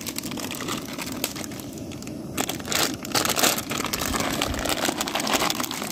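Plastic pasta packet crinkling and rustling in the hands as dry pasta is tipped out of it, in irregular dry rustles.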